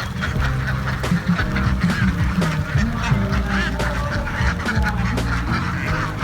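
A large flock of domestic ducks quacking and calling over one another, many at once, while being fed rice in their pen.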